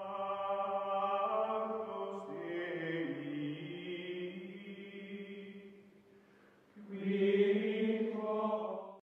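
Closing music of choir-like voices holding long sustained chords that shift pitch in steps, fading almost away about six seconds in, then one louder held chord that cuts off suddenly at the end.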